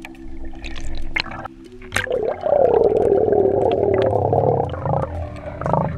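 Muffled underwater sound picked up by a submerged GoPro: a low steady hum and a couple of sharp knocks at first, then a loud bubbling water rush from about two seconds in that eases off near the end.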